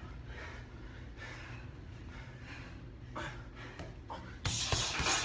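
A low steady room hum with a couple of faint knocks, then, about four and a half seconds in, a loud breathy gasp from a person straining through an exercise.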